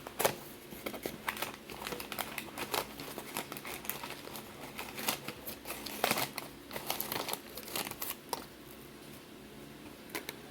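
Packaging crinkling and crackling as it is handled, in irregular sharp crackles, the loudest just after the start and about six seconds in.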